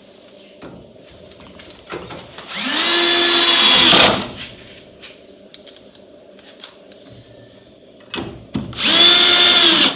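Cordless drill-driver running in two bursts, each rising quickly to speed and holding a steady whine, as it drives screws to fix a steel bracket to a wooden post. The first burst is about a second and a half long, near the middle; the second, shorter one comes near the end. Light clicks and handling knocks fall between them.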